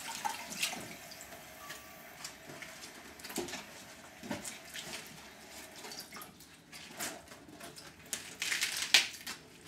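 Tap water running and splashing as lettuce and spinach leaves are rinsed under it, with a few louder splashes near the end.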